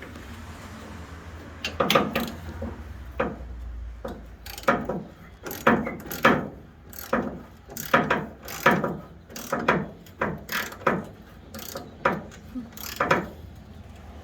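Hand ratchet wrench clicking through repeated short strokes, about one a second, starting a couple of seconds in: a bumper bracket bolt being ratcheted loose.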